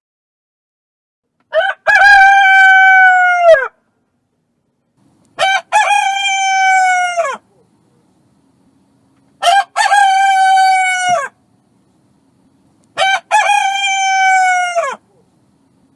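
Rooster crowing four times, about every four seconds: each crow a short opening note, then a long held cock-a-doodle-doo that drops in pitch at the end.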